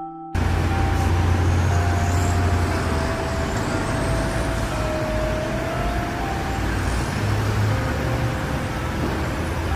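City street traffic noise cuts in abruptly just after the start: a steady low engine rumble under a wash of road noise, with a few faint drifting tones.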